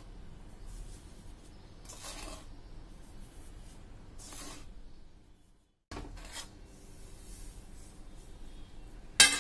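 Rasping scrapes of a spoon and wooden spatula against steel cookware as semolina is scraped off a steel plate into a pan of hot milk and stirred in. The scrapes come a couple of seconds apart, and one sharp knock sounds near the end.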